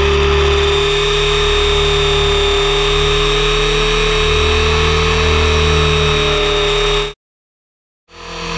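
Radio-controlled helicopter in flight, heard from a camera on its own frame: a steady high whine over the rush of the spinning rotor, with a low pulse that swells and fades. The sound cuts off abruptly about seven seconds in, is silent for a second, then comes back.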